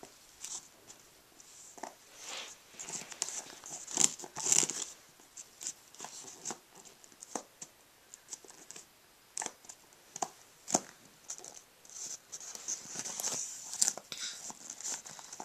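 Cardboard jigsaw puzzle pieces handled by a toddler's small hands, sliding and tapping on a foam play mat: scattered soft rustles, scrapes and light taps, with a louder cluster about four seconds in.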